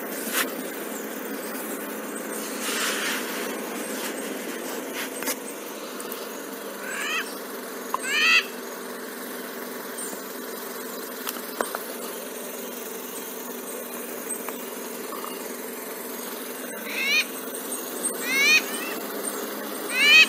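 Black-billed amazon parrot calling from a field recording: short calls, two about seven seconds in and three more from about seventeen seconds in, over steady background noise.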